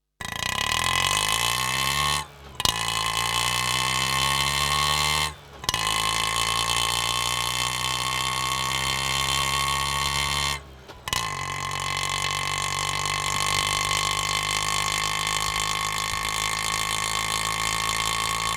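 Auto rickshaw engine pulling away, its pitch rising, then cutting out briefly three times with a click as it shifts gear, and running steadily at the end.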